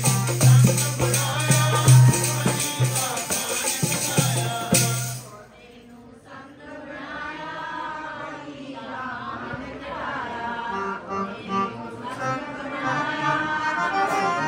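Punjabi devotional song with harmonium, dholki drum and jingling percussion. About five seconds in, the drum and jingles stop and the harmonium and singing go on softly, slowly growing louder toward the end.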